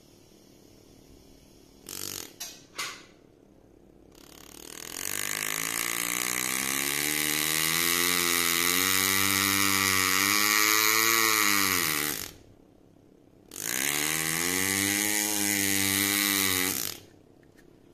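Palm-controlled pneumatic engraving handpiece running, its air-driven piston hammering the graver rapidly as it cuts into a brass plate, making a steady buzz. The buzz rises in pitch as more air is let in and drops away as it is released about twelve seconds in, then runs again for a few seconds near the end. A few light clicks come about two seconds in.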